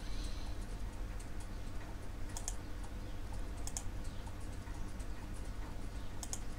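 Steady low electrical hum in the recording, with three faint double clicks about two and a half, three and a half and six seconds in, of the kind made by computer keys or a mouse.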